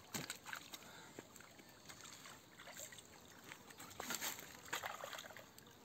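Faint lapping and trickling of lake water at the bank, with a few light taps and knocks, the loudest about four seconds in.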